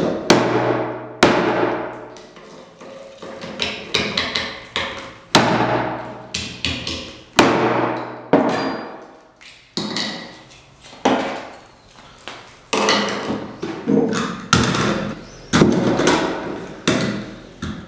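A large knife blade chopping hard plastic headphone parts against a stone slab, in irregular chops about one a second. Each chop lands sharply and rings briefly.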